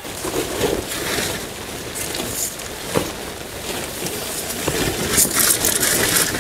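A large nylon tent sheet and a plastic rain poncho rustling and crinkling as the sheet is pulled out and dragged, with sharp crackles now and then. Rain is falling throughout.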